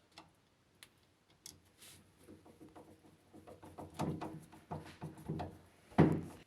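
Scattered light clicks and knocks that come thicker after about two seconds, with one louder knock about six seconds in.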